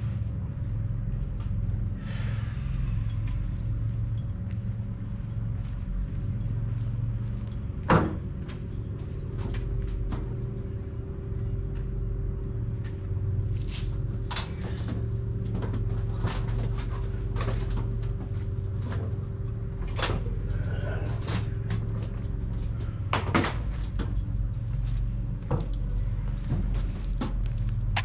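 Scattered metallic clicks and knocks of hand work with tools and fittings over a steady low hum, with one sharp knock about eight seconds in and another about twenty-three seconds in.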